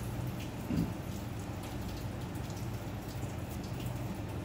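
Long knife slicing through a block of raw fish fillet onto a plastic cutting board: faint scattered ticks and wet crackle over a steady low hum.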